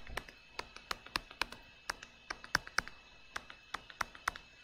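Light, irregular taps and clicks, about four a second, of handwriting on a digital drawing tablet. They stop shortly before the end.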